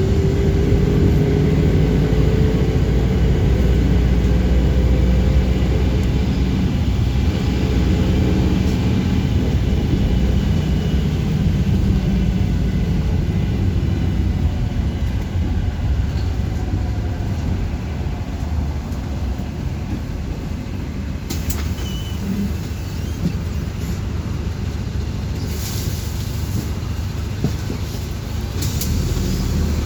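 City bus under way: steady engine and road rumble, with the engine's pitch rising a little over the first few seconds. A few short rattles or clicks come in the second half.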